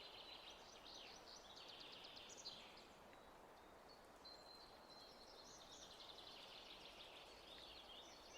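Faint birdsong of high chirps and short trills, with one thin held note about halfway through, over a soft hiss.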